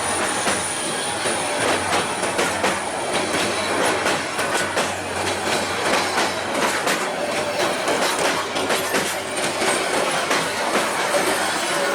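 Passenger train carriages rolling past close by: a steady rush of wheels on rails with many clicks and clatters as the wheels cross rail joints.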